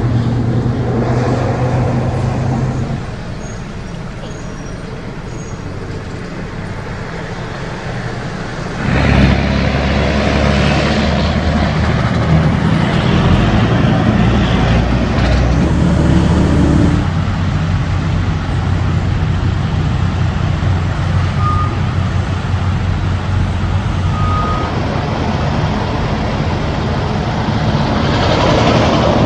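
Semi trucks hauling heavy loads drive past with their diesel engines running, over road noise. The sound dips for a few seconds, then grows loud at about nine seconds in as a truck's engine comes close.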